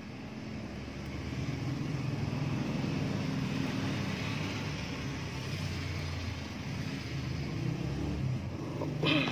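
A low engine rumble with a steady hum, growing slightly louder over the first few seconds, with a brief higher sound shortly before the end.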